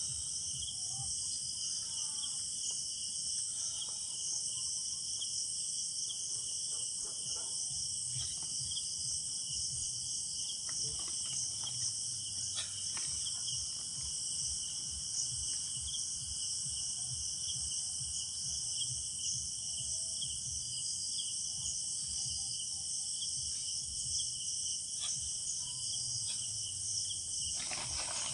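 Night chorus of crickets and other insects: a steady, high-pitched chirring with no break. Faint low rustling and small knocks sit underneath.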